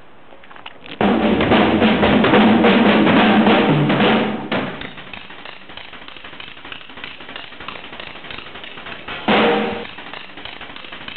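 Drum kit played fast and hard: a loud flurry of rapid drum strokes with crashing cymbals starts about a second in and runs for a few seconds, then the drumming carries on more quietly, with one more short loud burst near the end.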